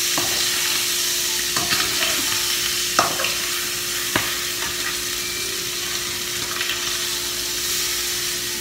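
Food sizzling as it fries in a pan, with a few sharp clicks of a utensil against the pan, the loudest about three seconds in. A faint steady hum runs underneath.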